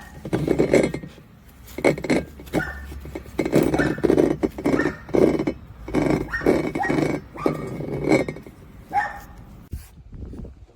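Repeated short, sharp animal calls, one or two a second, that stop near the end.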